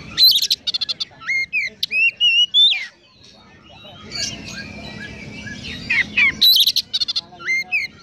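Oriental magpie-robin singing: two loud song phrases, about a quarter second and six and a half seconds in, each a quick rattle followed by short upward-hooked whistles, the song filled with mimicked Eurasian tree sparrow chirps.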